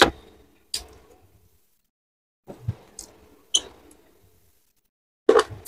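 Sparse eating sounds: a few short, sharp mouth clicks and smacks from chewing, spaced apart, with near silence between them.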